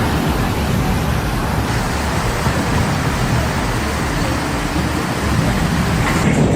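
Strong storm wind blowing against the microphone: a loud, steady rush with a fluctuating low rumble.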